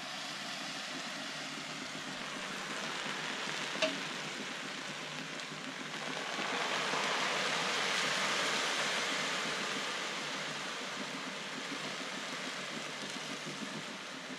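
Cold sugar syrup poured over hot, freshly baked baklava, sizzling steadily ('cızır cızır'). It swells louder in the middle, with a small click about four seconds in.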